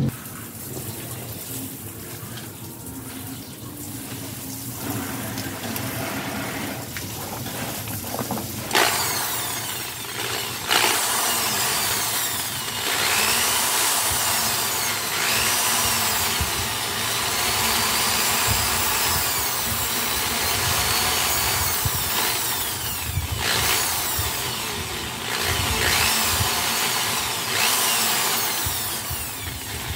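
Handheld electric drill running, starting about nine seconds in, its motor speed rising and falling with a few brief let-offs.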